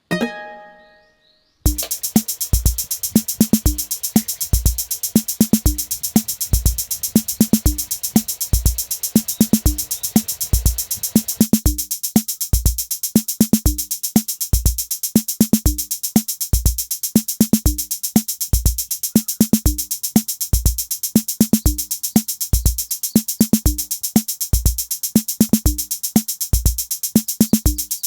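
Background music: an electronic drum-machine beat with a steady kick drum and busy hi-hats, starting about a second and a half in after a brief fading chime.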